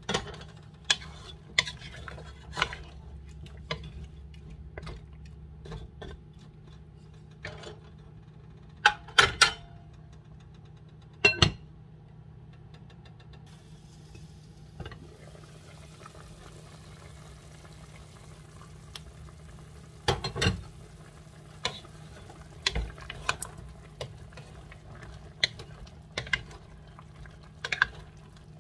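A utensil knocking and scraping against a cooking pot in scattered clicks while a pot of curry is stirred, over a steady low hum. About halfway in, a faint hiss of the pot simmering comes in.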